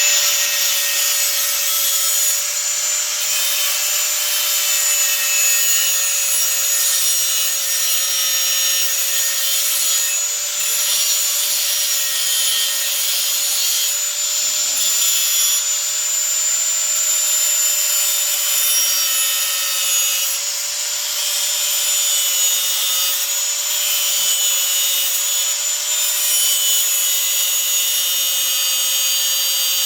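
Steady, continuous machine noise with a constant whine that holds unchanged throughout.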